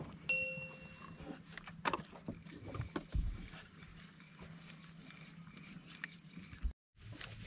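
Fishing boat's engine idling with a low, steady hum, with scattered knocks and clicks of tackle and deck as a caught fish is handled. Near the start, a short bell-like chime sounds for about a second.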